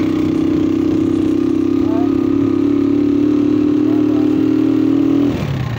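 Motorcycle engine running steadily under way, heard from on the bike. The engine note dips briefly about five seconds in, then picks up again.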